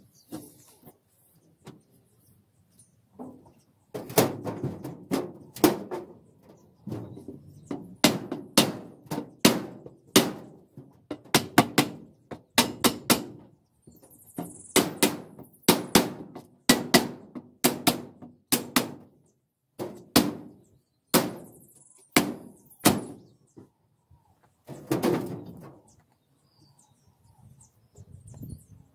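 Mallet blows on a block of wood laid on an aluminium hollow plank, knocking the plank down into the truck side's frame. A long run of sharp knocks, one or two a second in clusters, each ringing briefly, stopping a few seconds before the end.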